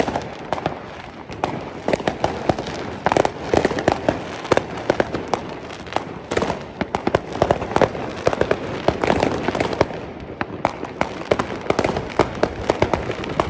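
New Year's Eve fireworks and firecrackers going off all around, a dense, continuous barrage of irregular bangs and cracks.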